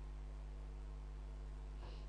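Steady low electrical hum with faint hiss, and a brief soft puff of noise near the end.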